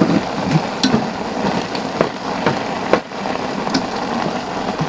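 Wooden chopsticks stirring ramyeon noodles in a metal camping pot, knocking irregularly against the pot's sides about seven times. Underneath is the steady hiss of the pot boiling on a portable gas stove.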